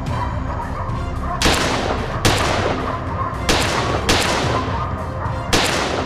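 Five shots from a Browning BAR 4X semi-automatic rifle in .30-06 Springfield, fired at uneven spacing over about four seconds, the first about a second and a half in.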